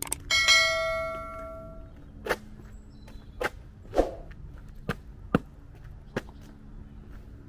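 A single metallic clang, a struck metal object ringing with several clear tones and dying away over about a second and a half, followed by a walker's footsteps, about six spaced steps.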